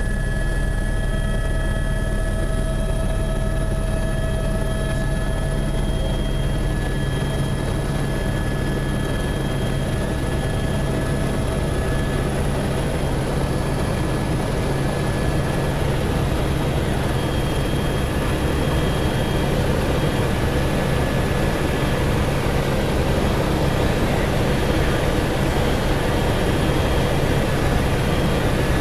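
Cabin noise of an AS350 B3 Écureuil helicopter in cruise flight: a steady rumble of the rotor and Turbomeca Arriel turboshaft engine, with a constant high-pitched turbine whine over it.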